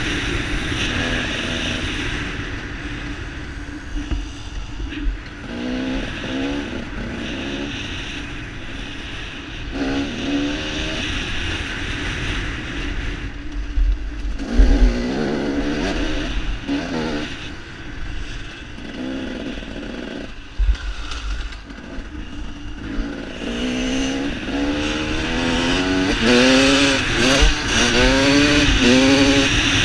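Dirt bike engine revving hard and shifting up through the gears, its pitch climbing and dropping again in repeated runs, under heavy wind noise on the helmet-mounted microphone. A few sharp thumps from bumps in the track, the loudest about halfway through.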